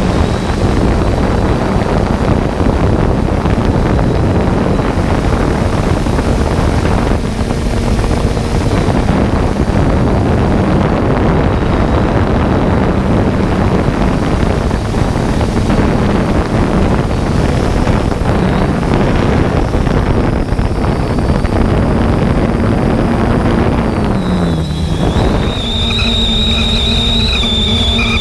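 3DR Solo quadcopter's propellers and rushing air on the GoPro's microphone: a loud, steady rush with a faint motor hum that dips in pitch and recovers near the end, where the rush falls away and several steady tones take over.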